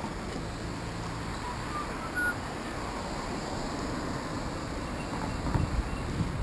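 Steady wind and road noise while riding a fixed-gear bicycle through street traffic, with low rumble building near the end as the bike picks up speed. A few faint short chirps come through about two seconds in.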